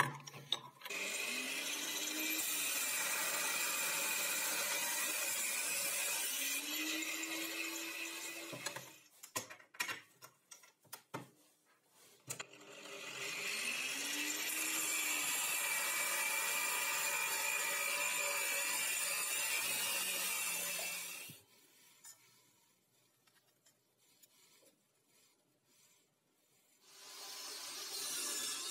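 Angle grinder held in a stand, spinning up and running under load in two long stretches, cutting steel, with clicks and knocks in the gap between them. The machine noise stops a few seconds before the end, and a steady whir starts again near the end.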